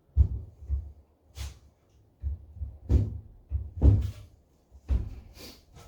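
Wooden hive-box parts knocking and bumping against each other and the table as they are handled, with an uneven run of dull thumps and a few sharper clicks.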